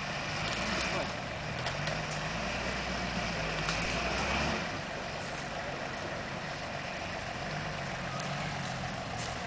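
Off-road 4x4's engine working hard under load as the vehicle churns through deep mud ruts, its pitch climbing over the first few seconds, then dropping off sharply about four and a half seconds in to a steadier, lower running sound.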